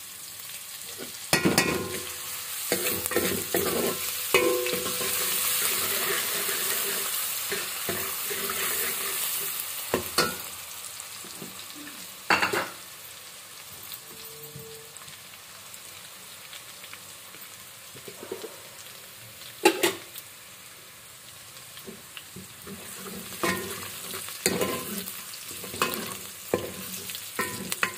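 Garlic-ginger paste frying in hot oil in an aluminium pot, sizzling, while a steel ladle stirs and scrapes and knocks against the side of the pot again and again. The sizzle is strongest in the first ten seconds and then settles lower; the sharpest knock comes about two-thirds of the way through.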